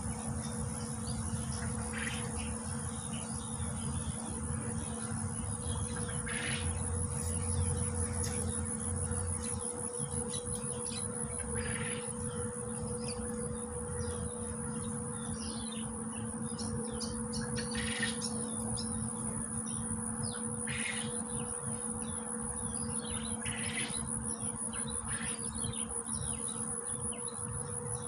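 Insects droning with a steady high-pitched buzz, while birds give short calls every few seconds, over a steady low hum.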